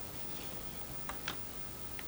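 Two short, light plastic clicks close together about a second in, from handling a plastic action figure or its packaging, over a steady low hiss.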